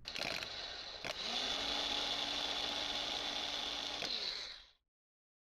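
Rebuilt car starter motor bench-tested off a 12 V battery: it clicks in, and about a second in a second click brings it up to speed with a steady electric whine. Near four seconds it clicks off and the pitch falls as it spins down.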